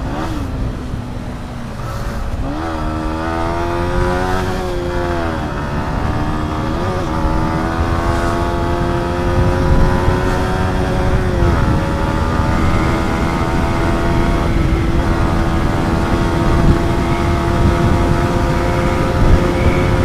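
Yamaha MT-15's single-cylinder engine pulling hard through the gears under a moving rider. The pitch climbs and drops back at each upshift, about four times in the first half, then holds nearly steady at cruising speed with a slight rise near the end.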